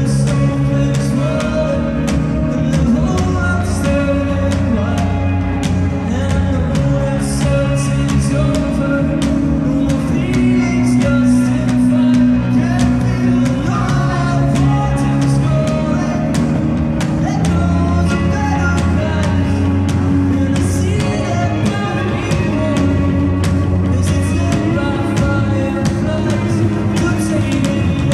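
Live band playing a song: singing over electric guitars, keyboard, held bass notes and a steady drum beat with cymbals.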